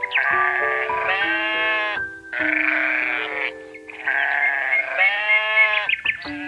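Three long, wavering bleating calls from a farm animal, played over background music with sustained keyboard notes.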